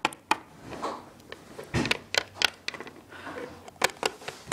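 Irregular clicks, taps and rustles of small plastic toy figurines being handled and moved about close to the microphone.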